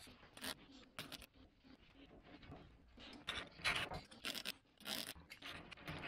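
Blue paper shop towel wiping and scrubbing a VW Beetle door hinge: a run of short, faint scraping strokes.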